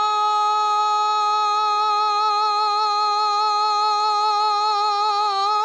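A male munshid's unaccompanied voice holding one long high note at a steady pitch with a slight waver, breaking into quick melismatic ornaments right at the end. It is the drawn-out sustained vowel typical of Islamic inshad.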